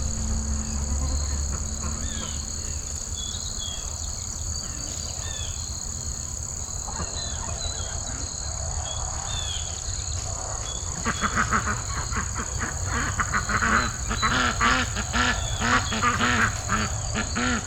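Domestic waterfowl calling: faint high chirps at first, then from about eleven seconds in a rapid, loud run of repeated quack-like calls that keeps on to the end.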